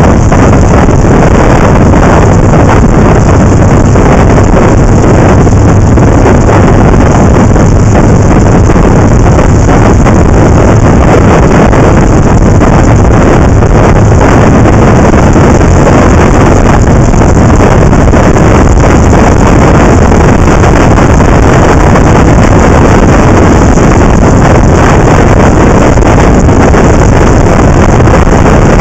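Loud, steady wind noise on the microphone of a camera mounted on a moving motorcycle, with the motorcycle's low engine drone underneath.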